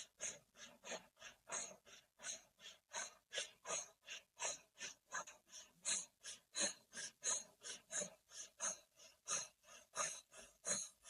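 Rapid rhythmic breathing in and out through rounded, O-shaped lips, about three short airy breaths a second, held at an even pace, as in a Kundalini yoga breathing exercise.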